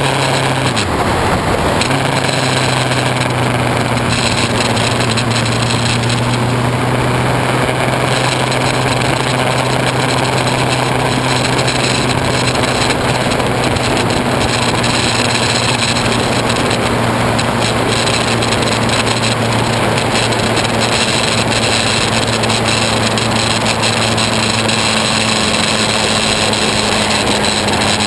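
Honda CBF600S inline-four engine running at a steady cruise, heard through a GoPro's waterproof housing, which makes the recording noisy. The engine note dips briefly about a second in, then holds steady.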